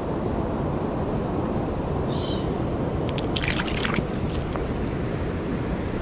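Mountain stream water rushing steadily over rocks. A short cluster of sharp clicks comes about three and a half seconds in.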